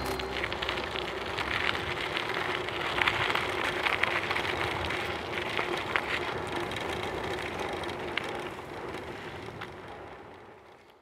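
Mountain bike rolling along a dirt trail: steady tyre and wind noise with scattered chain and frame rattles, fading out near the end.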